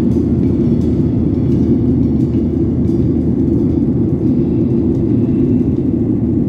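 Steady, loud jet airliner cabin noise in flight: the deep rumble of the engines and airflow heard from a window seat, even and unchanging.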